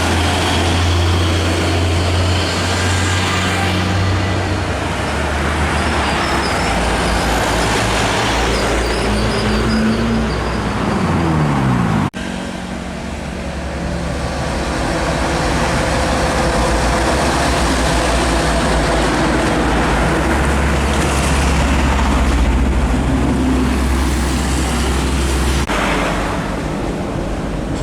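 Heavy trucks driving past on a highway, with diesel engines running and tyres on the road. Shortly before twelve seconds in, one engine's note rises, and then the sound breaks off abruptly.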